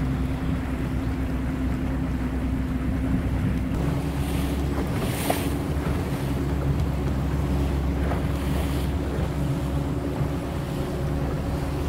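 A 1989 Four Winns Sundowner cruiser underway: a steady engine drone with wind on the microphone and water rushing past the hull. The drone shifts slightly about four seconds in, and short hissing splashes of water come through around five seconds and again around eight seconds.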